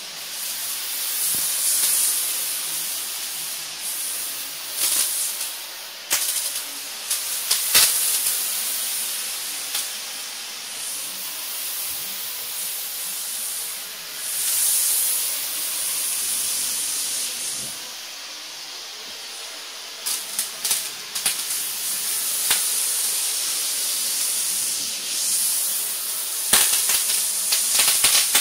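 RS500 spray machine spraying Magnum R-125 onto fibre gypsum board: a steady, loud hiss from the spray gun, easing off for a couple of seconds about two-thirds of the way in. Scattered sharp clicks run through it.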